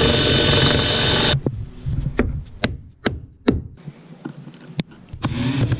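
Cordless drill spinning a 1 3/8-inch hole saw as it cuts into a boat's gunwale, stopping about a second and a half in. Scattered light clicks and taps follow as a screw is set, and the drill runs again near the end.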